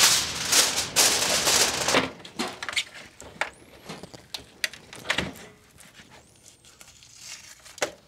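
Aluminium foil crinkling loudly for about the first two seconds. Then softer, scattered clicks and handling sounds as gloved hands work a smoked pork shoulder in a foil pan and pull out its bone, with a low thump about five seconds in.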